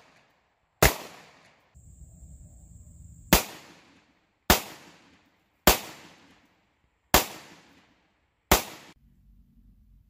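Six single shots from a Palmetto State Armory AR-style 9mm pistol with a 4-inch barrel, firing brass-cased 9mm ammunition, spaced about one to one and a half seconds apart after a longer gap following the first. Each shot is sharp and dies away quickly.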